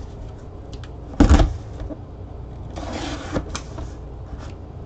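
Cardboard mini-helmet box handled by gloved hands: a sharp thump about a second in as the box is set down or knocked, then a short rustling scrape of cardboard sliding near three seconds, with a few small taps.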